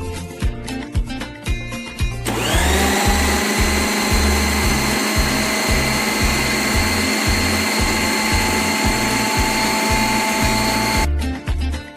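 Electric kitchen blender motor switched on about two seconds in: it spins up with a brief rising whine, runs at a steady pitch, then stops abruptly near the end. Background music with a steady beat plays throughout.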